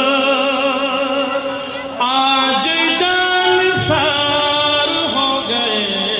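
Male voice singing a naat, drawing out long held notes with wavering, ornamented pitch.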